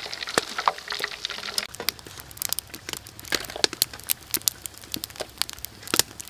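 Crisp freshly fried prawn crackers rustling and clicking against one another, a dense, irregular run of sharp crinkly crackles, over a faint oil sizzle in the first two seconds.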